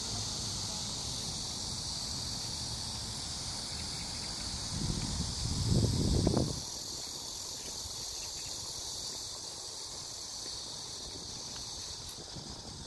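Steady chorus of insects, an even high-pitched buzz. About five seconds in there is a brief low rumble of wind or handling on the microphone.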